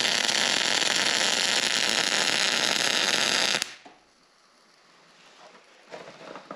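MIG welding arc from an ESAB Rebel 205ic at full output, 26 volts and 475 inches per minute wire speed, running a bead on quarter-inch steel plate. It is a loud, steady crackling hiss that cuts off abruptly a little over three and a half seconds in. A sharp click follows near the end.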